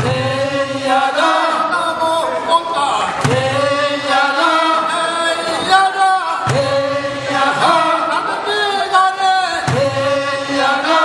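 A group of men chanting a traditional Korean fishermen's work song in unison, in repeated phrases about three seconds long, each starting with a strong low attack.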